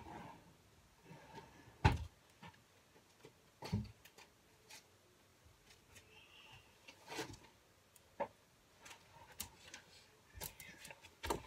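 Scattered knocks, clicks and rustles of someone handling objects around a small room, the loudest knock about two seconds in.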